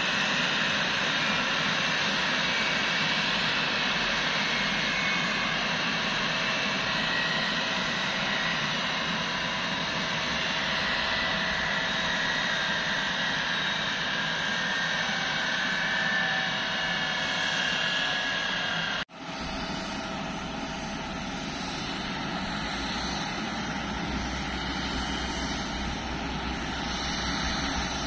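Jet engines of a Boeing 777-300ER (GE90-115B) running with a loud, steady roar and a whine that slowly falls in pitch. About two-thirds of the way through the sound breaks off abruptly and a quieter, deeper engine rumble follows.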